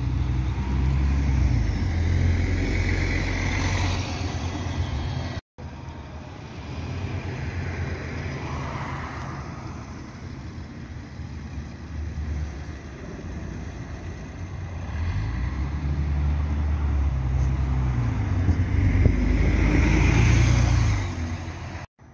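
City buses driving past close by: a low rumble with tyre noise as an articulated bus passes. After a cut, another bus rounds the bend, its drive rising in pitch as it pulls away, loudest near the end.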